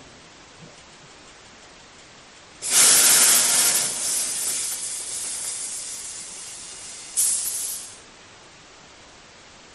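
High-pressure compressed air venting with a sudden loud hiss that fades over about five seconds, followed by a second short burst of hiss.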